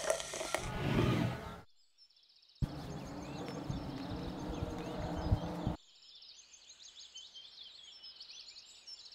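Cola fizzing as it is poured into a glass of fernet, then a brief cut to silence. After that comes steady outdoor noise with small birds chirping, quieter from about halfway through.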